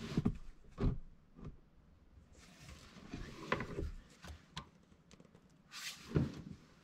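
Scattered knocks, clunks and scraping from an oil drain pan and tools being handled under a car while getting at the oil filter to loosen it.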